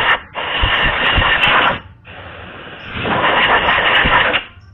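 Compressed-air blow gun hissing in long blasts, blowing sanding and wire-brush dust out of a scooter's rear brake drum. The air breaks off briefly just after the start, runs softer for about a second in the middle, then blasts hard again and stops near the end.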